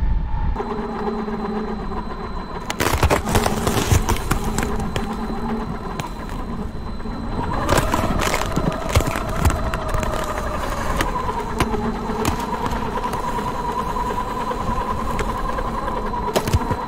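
Big RC car driving over ice. Its motor and drivetrain whine in a tone that rises and falls with speed, over the constant crackle and scrape of the tyres on the ice, which grows louder a few seconds in.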